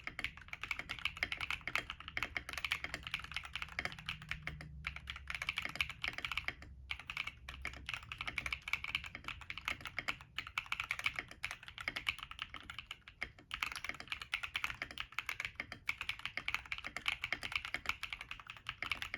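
Fast continuous typing on a mechanical keyboard with stock Akko Cream Yellow Pro linear switches, FR4 plate and MT3-profile keycaps in a stacked acrylic case, with brief pauses between bursts.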